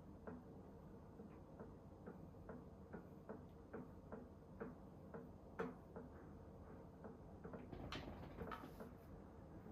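Faint, even ticking, a little more than two ticks a second, with a brief rustle near the end.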